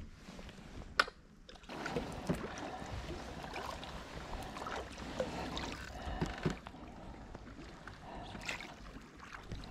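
Sea kayak paddling on a lake: paddle blades dipping and splashing irregularly, with water washing along the hull. A single sharp knock about a second in.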